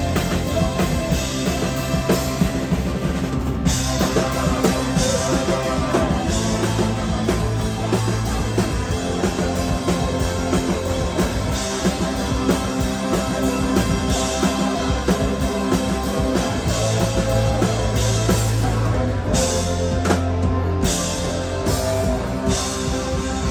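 A live band playing a song with a steady beat: drum kit, bass guitar, electric guitar and a horn section of trumpet, trombone and saxophones. The upper range briefly drops out twice, near 3.5 s and again around 20 s, as the arrangement breaks.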